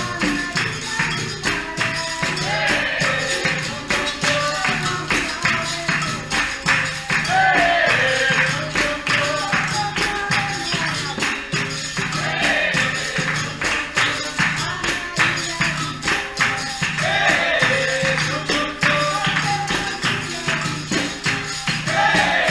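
Capoeira roda music: a pandeiro and other percussion keep a steady rhythm under sharp, regular strikes, while voices sing short recurring phrases.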